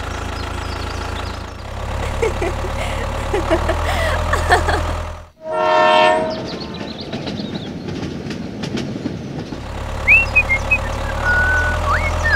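A train horn sounds briefly about five and a half seconds in, followed by the rumble and clatter of a toy train running along its track. Before the horn there is a steady low hum.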